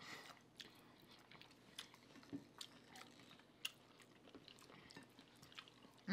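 Faint chewing and mouth clicks of people eating meatloaf: a scattering of small wet clicks, with one sharper click a little past the middle.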